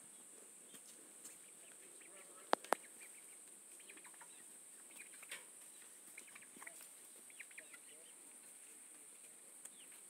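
Quiet farmyard ambience: scattered short bird calls over a steady high hiss, with two sharp clicks close together about two and a half seconds in.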